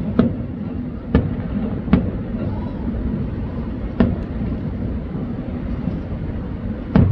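Aerial fireworks shells bursting: single sharp bangs a second or two apart, then a quick run of bangs at the very end, over a steady low rumble.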